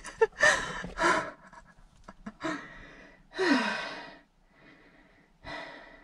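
A frightened woman breathing hard: about six shaky breaths and sighs, the longest one about three seconds in voiced and falling in pitch, in the wake of a scare.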